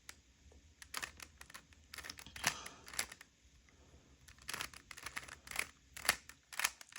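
Rubik's cube being twisted by hand: irregular plastic clicks and clacks as its layers turn.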